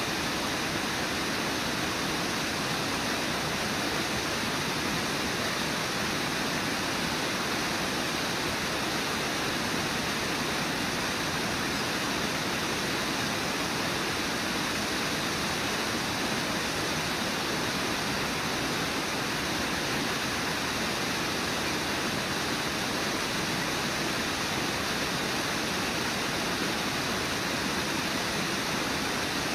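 A low waterfall and its whitewater rapids rushing in a steady, unbroken roar of falling water.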